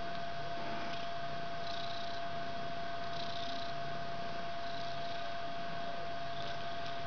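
Cat purring softly in repeated low pulses, over a steady electrical hum.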